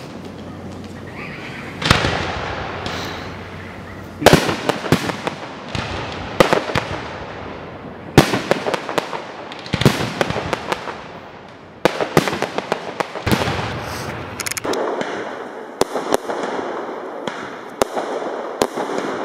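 Aerial fireworks shells bursting: a loud bang every second or two, with crackling between them. In the last few seconds a quicker run of sharp pops follows.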